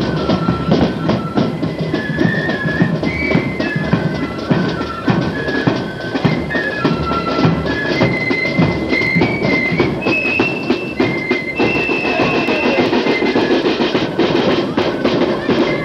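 A marching flute band playing a tune: flutes carry a high melody of short, changing notes over the steady beat of a bass drum and other drums.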